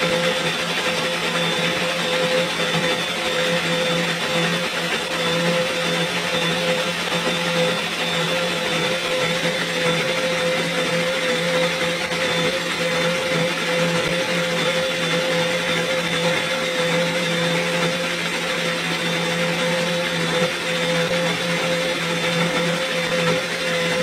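Vitamix high-speed blender running steadily at one speed, blending leafy greens and coconut water into green juice. It makes a constant whine that holds the same pitch throughout.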